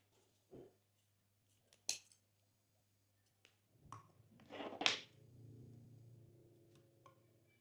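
Slime and mixing items being handled on a table: scattered small clicks, a short thud and a sharp click, then a louder crackling, squishing burst about four to five seconds in that fades away slowly.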